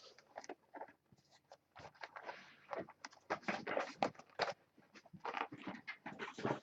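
Faint, irregular crinkling and rustling from a box of 2012 Panini Elite football cards being handled.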